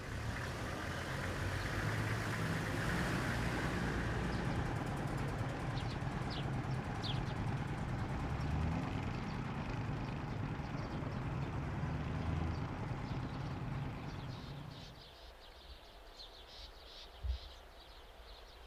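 A vehicle engine running with a steady low rumble that drops away about fifteen seconds in. A few bird chirps sound over it, fainter chirps follow once it has gone, and there is a single low thump near the end.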